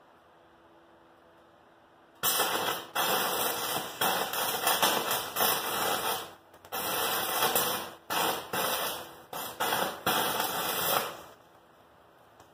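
Stick-welding arc from a battery-powered arc welder crackling and sputtering, starting about two seconds in and stopping near the end, with several brief breaks where the arc goes out and restrikes. The rod sparks a ton and runs poorly, seeming to explode.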